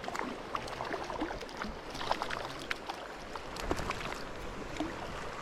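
Running creek water, with scattered small splashes and clicks.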